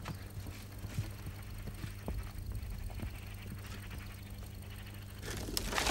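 Faint hoofsteps of a donkey walking on packed dirt: a few scattered soft clops over a steady low hum. Near the end comes a louder scratchy rustle.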